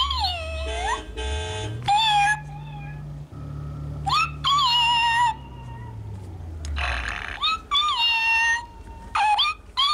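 FurReal Friends electronic toy cat meowing, about six meows with gliding pitch, over a low hum that rises and falls.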